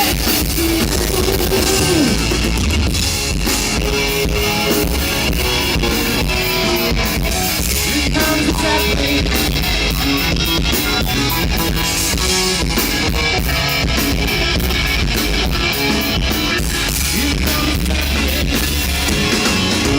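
Rock band playing an instrumental passage: drum kit and guitar over a steady bass line.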